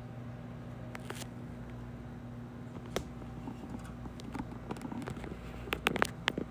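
Light clicks and taps of small dollhouse parts being handled: a few scattered ones, then a quick cluster of sharper clicks near the end, over a steady low hum.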